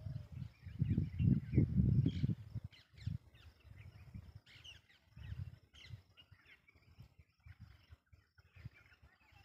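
Wind buffeting the microphone in uneven gusts, strongest in the first three seconds and dying down after, with small birds chirping repeatedly over it.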